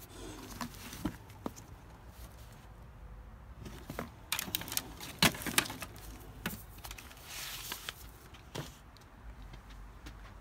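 Things being handled and shifted about in an old wooden trunk: scattered knocks and clicks of objects against wood, the loudest two about five seconds in, with a stretch of rustling about three-quarters of the way through.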